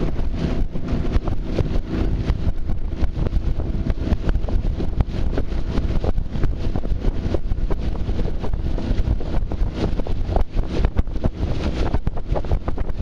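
Wind buffeting the microphone over the steady low drone of a motor launch's engine running at cruising pace.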